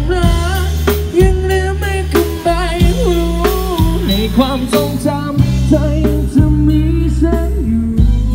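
Live band music from a sound truck's PA speakers: a drum kit and heavy bass under a wavering lead melody, played loud.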